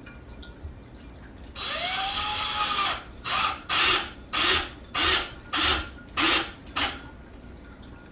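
Power drill driving a screw into the wall: one longer run with the motor speeding up and slowing down, then seven short trigger pulses about twice a second as the screw is snugged in.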